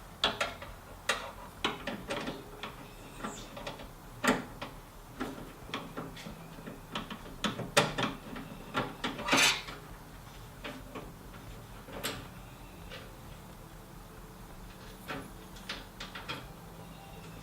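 Irregular metallic clicks and taps of a screwdriver and screw knocking against the door latch mechanism inside a Miata NA door as the screw is fed back into its hole, with a short scrape about nine seconds in. The taps thin out in the later part.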